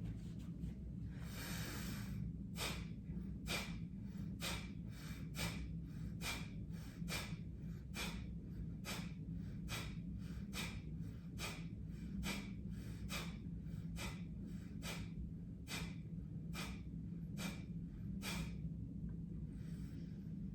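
Kapalbhati breathing: a longer breath in, then about twenty short, forceful exhalations through the nose, roughly one a second, each with a passive breath in between. A softer breath follows near the end.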